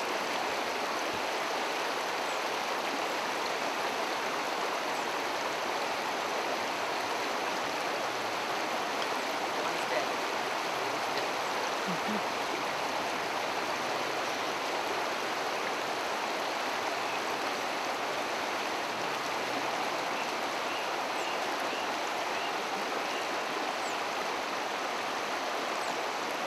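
Shallow river running over rocks in riffles: a steady rush of flowing water.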